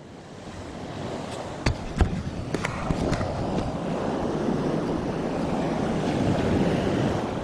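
Sea waves washing and wind on the microphone, an even rushing noise that builds over the first few seconds and then holds. A few sharp clicks or knocks sound in the first three seconds.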